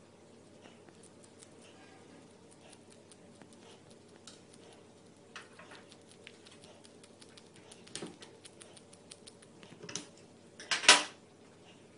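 Serotine bat making faint, rapid clicks and ticks. There are a few louder crackles around the middle and a loud crackling burst about a second before the end.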